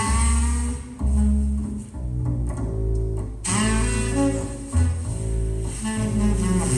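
Music with deep bass notes and string instruments, played back through KEF LS50 Meta bookshelf speakers and picked up by a phone's microphone.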